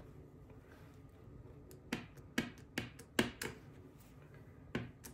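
Clear stamp on an acrylic block tapped repeatedly onto a Memento black ink pad to ink it: a series of short, sharp taps about half a second apart, starting about two seconds in.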